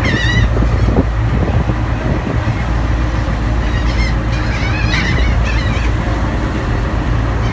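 Birds calling in short wavering cries, one group near the start and another about four to five seconds in, over a steady low rumble.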